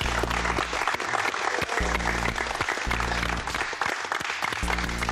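A small group of people clapping their hands in applause, over background music with a repeating low bass line.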